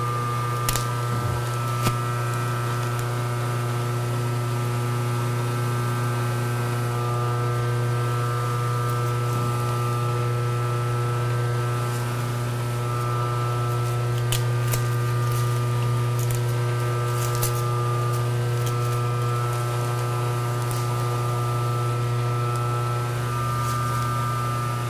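Lathe running steadily while skimming a fiberglass stern tube: a steady low hum with several steady higher tones from the machine, and a few light ticks.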